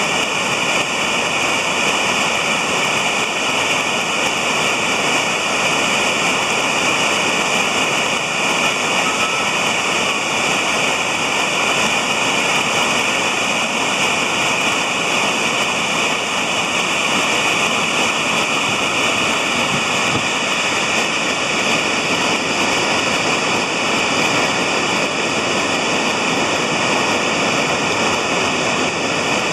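Steady rushing of a river in high flow, pouring over a weir and through white-water rapids.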